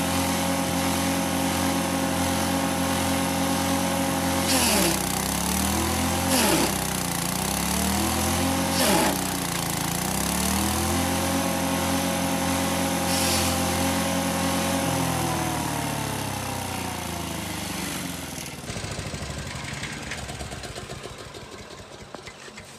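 6.5 HP stationary engine driving a multifunction chaff cutter, running steadily while moringa stems are fed in. Three times the engine pitch sags as stems hit the blades with a short crunching burst, then recovers; the sags are the engine taking the chopping load. About 19 s in the engine note falls away to quieter noise.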